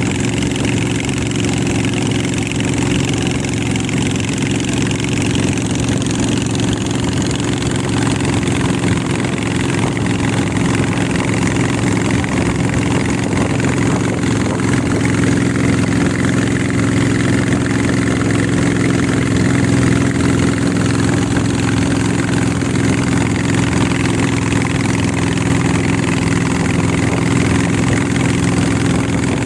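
Boat engine running steadily, a loud, constant drone.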